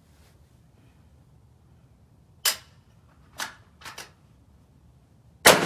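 A few short, quieter cracks, then near the end a single loud shot from a Rock River Arms .308 semi-automatic rifle, with a long echoing tail.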